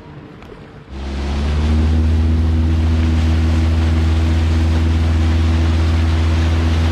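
A boat motor comes in abruptly about a second in and within a moment settles into a loud, steady low drone, with a rushing hiss of water and wind over it.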